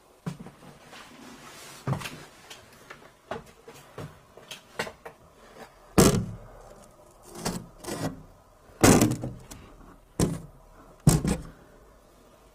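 A door being handled: a run of irregular wooden knocks, thuds and rattles, the loudest about six, nine and eleven seconds in.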